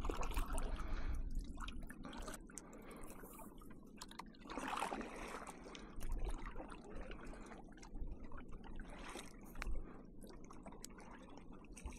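Kayak paddle strokes: water splashing and dripping off the paddle blades with each stroke, in swells every second or two.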